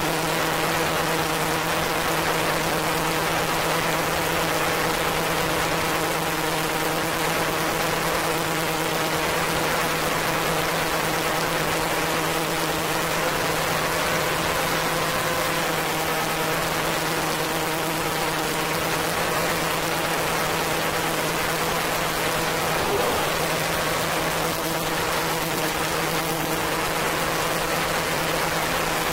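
Sustained synthesizer drone on one low pitch with steady overtones, under an even wash of hiss like rain.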